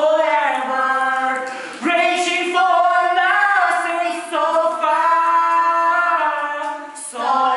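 A young man and a young woman singing a song together without accompaniment, in long held notes with vibrato. There are three phrases, with short breaks for breath between them.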